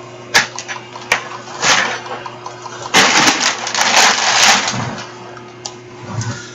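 Handling noises from moving furniture and things around the room: a couple of sharp knocks early, then a long loud rustling scrape with clicks in the middle, over a steady low hum.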